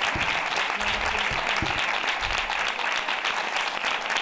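Audience applauding, a steady dense patter of hand claps.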